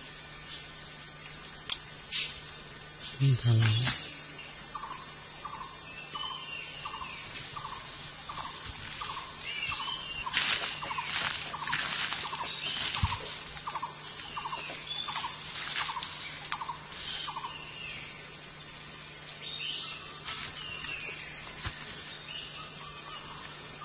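A bird in the forest repeats a short hooked call about twice a second for roughly twelve seconds, with other chirps and a steady high insect whine behind it. Dry leaves crackle underfoot in several clusters, and a brief low rising sound comes about three seconds in.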